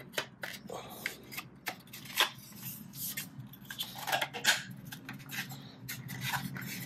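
Hard plastic dash-trim parts clicking and knocking together as a piece is pushed into a plastic dash-kit frame, with two sharper knocks about two seconds in and again about four and a half seconds in.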